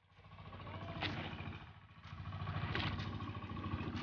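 Small engine of a motorized outrigger bangka running steadily underway at sea, with a fast, even beat. Surges of rushing noise about every second and a half.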